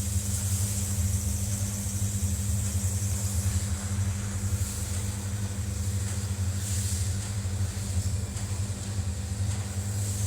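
CNC lathe running steadily, a constant low hum with a faint high whine.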